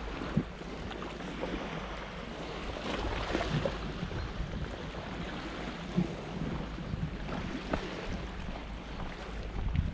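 Wind buffeting the microphone on a moving bicycle, a steady rushing noise broken by a few sharp knocks, the loudest about six seconds in.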